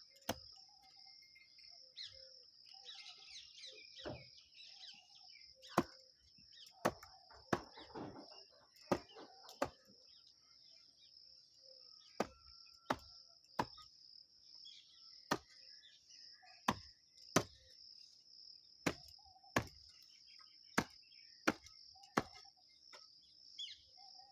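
A steady high insect trill, typical of crickets, runs throughout, broken by sharp clicks or taps at irregular intervals about a second apart, which are the loudest sounds. A few faint short chirps come in between.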